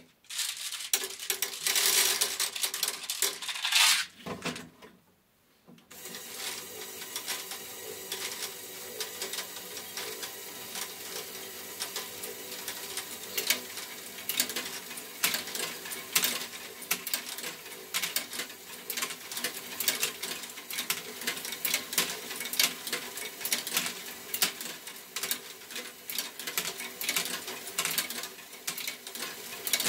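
A loud clatter for about four seconds, then a short pause. About six seconds in, a LEGO Technic great ball contraption starts running: a motor-driven chain lift hums steadily while small plastic balls click and rattle constantly along the chain and track.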